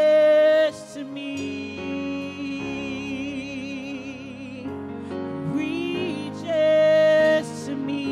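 A woman singing a gospel song over sustained instrumental chords. She holds a loud high note at the start and another about six and a half seconds in, with softer wavering lines between.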